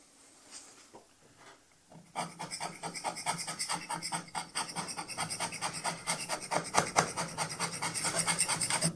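Hand scraper being pushed in rapid short strokes, about five or six a second, across the way surface of a Schaublin 102 compound slide: rough step scraping to take metal down from one square of the worn slide. The scraping starts about two seconds in and runs until just before the end.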